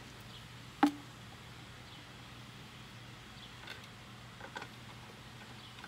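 An emptied plastic motor-oil bottle set down on concrete, giving one sharp knock about a second in. A few faint clicks of handling follow, over a faint steady hum.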